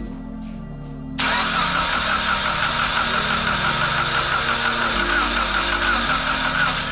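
Starter motor cranking the Evo X's 2.0-litre turbo four-cylinder (4B11T) for a compression test. The engine turns over without firing because the ignition and fuel pump fuses are pulled. It starts suddenly about a second in and cranks steadily and rhythmically for around five and a half seconds, over background music.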